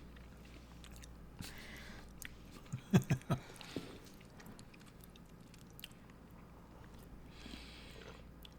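Close-up mouth sounds of chewing a soft, sugary Indian sweet, quiet and moist, with a quick run of three or four sharp knocks about three seconds in.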